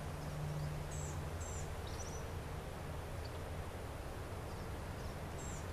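Quiet rural outdoor ambience: a steady low hum with two pairs of short, high bird chirps, one about a second in and one near the end.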